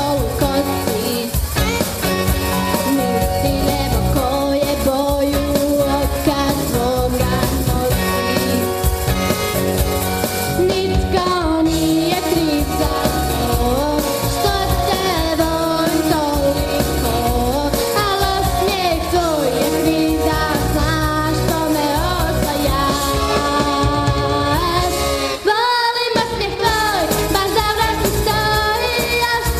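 A girl singing a pop song into a microphone over backing music with a steady beat, the music dropping out briefly near the end.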